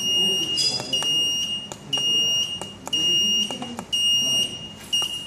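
Alarm buzzer of a PLC burglar alarm beeping, a high-pitched beep about once a second, signalling an intrusion in zone 1. Several sharp clicks of push buttons fall between the beeps as the PIN is keyed in, and the beeping stops near the end as the alarm is deactivated.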